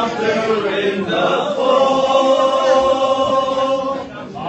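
A crowd of voices singing together in unison, settling into a long held note about a second in and breaking off near the end.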